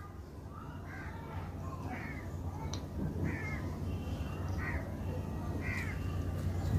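A crow cawing repeatedly, short harsh calls about once a second, over a steady low hum.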